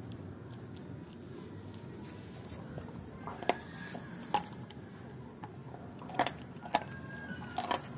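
German Shepherd chewing raw chicken legs, with about five sharp crunches of bone in the second half.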